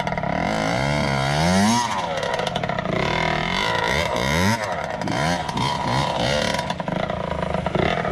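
Kawasaki KX60 dirt bike's small two-stroke single-cylinder engine being ridden, its pitch repeatedly rising as the throttle opens and dropping back, several times over.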